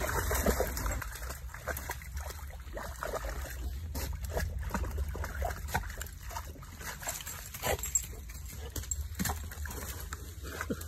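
A dog splashing and wading in a shallow stream, with scattered short splashes and knocks as it grabs and drags a long stick through the water.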